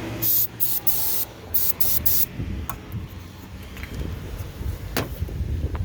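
Aerosol can of starter fluid sprayed in several short hissing bursts during the first two seconds, priming the engine before it is cranked for the first time.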